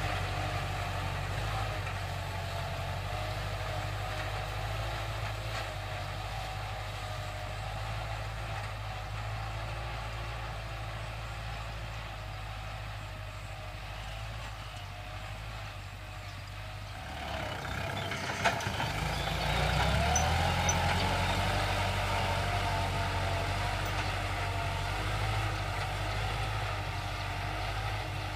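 Kubota L5018 tractor's diesel engine running steadily under load while pulling a disc plough through dry paddy soil. It fades as the tractor moves off. About two thirds in there is a sharp click, the engine note rises, and it grows louder as the tractor comes back.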